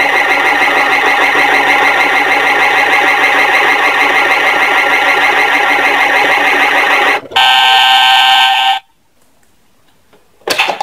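Play Go toy washing machine's electronic sound effect playing through its small speaker: a loud steady warbling wash-cycle hum that switches about seven seconds in to a steady electronic beep tone for a second and a half, then cuts off. A short click or knock comes near the end.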